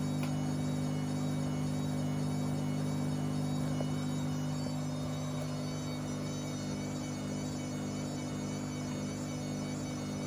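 Whirlpool AWM 864 Aquaprogramm washing machine running with a steady electrical hum, with no breaks or clunks.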